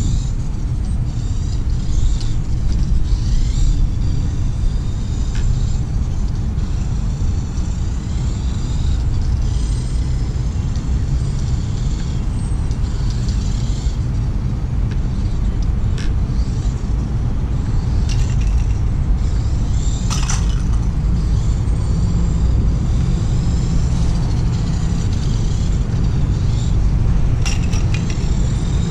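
Wind rumbling steadily on the microphone, with the faint high whine of a Tamiya Dual Rider RC trike's small electric motor and gears rising and falling as it speeds up and slows down. A few light clicks, and a short louder rasp about two-thirds of the way through.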